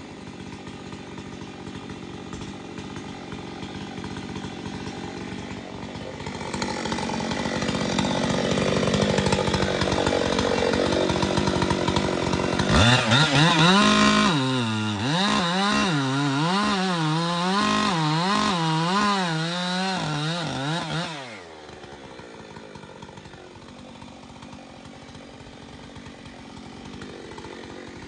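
Chainsaw idling, then revved up to full throttle and cutting into a big tulip poplar trunk for about fifteen seconds, its pitch wavering up and down as it loads in the cut. It drops back to idle about 21 seconds in.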